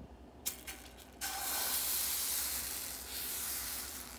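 Baghrir batter hissing as it is ladled onto a hot non-stick frying pan, starting suddenly about a second in and slowly fading. A few light clicks come just before.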